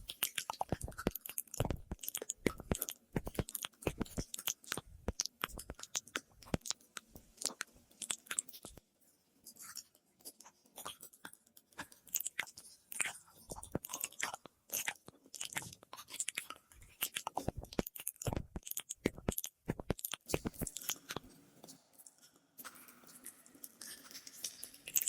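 ASMR mouth sounds close to the microphone: a quick, irregular run of wet clicks and smacks of lips and tongue. They thin out about nine seconds in and again near the end.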